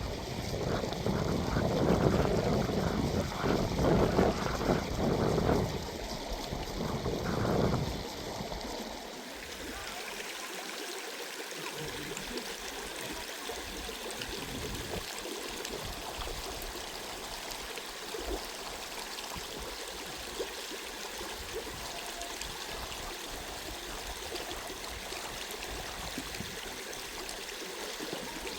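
Loud, gusty low rumbling for about the first eight seconds, then the steady rush of a flowing mountain stream.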